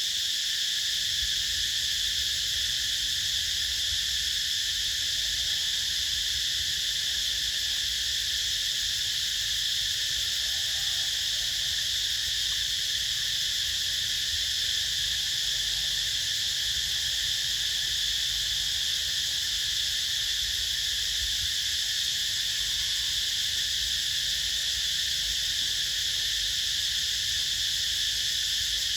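Dense insect chorus: a constant, high-pitched buzz that never lets up, with a low rumble underneath.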